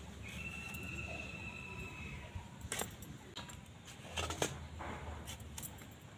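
Small eggplant being sliced on a boti, a curved blade fixed in a wooden base: a few soft cuts and clicks, with bangles clinking on the cutting hands, loudest a little past the middle. A faint high steady tone runs for about two seconds near the start.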